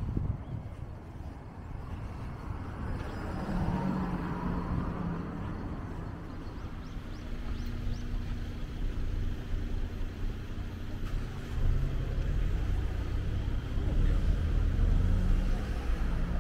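Cars on a city street: one passes a few seconds in with tyre noise swelling and fading, followed by a steady low engine hum and a heavier low rumble toward the end.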